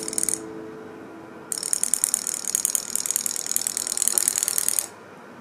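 Robotic toy fish's tiny motor and gear driving its tail fin, a fast ratcheting whir of clicks. It stops just after the start and starts again about a second and a half in, running until near the end.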